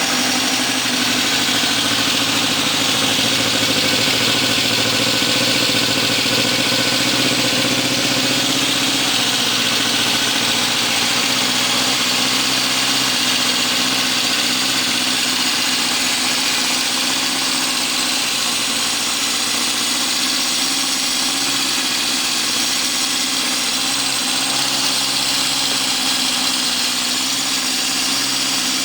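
A freshly restored 1972 Honda CB750 K2's air-cooled inline-four engine idling steadily just after starting, through its four new exhaust pipes and on rebuilt carburetors. Its note settles a little lower about nine seconds in.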